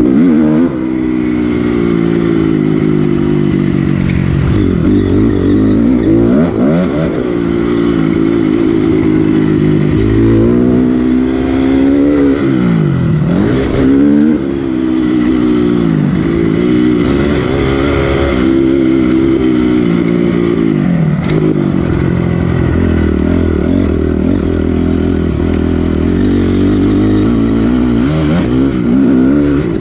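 Motocross bike engine ridden hard on a dirt track, revs climbing and falling over and over as the rider works the throttle and shifts gears. It runs steadier near the end.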